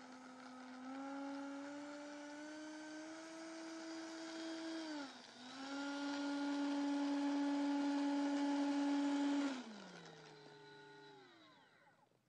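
A mechanical whine holding a near-steady pitch. It dips and comes back louder about five seconds in, then slides down in pitch and fades away near the end.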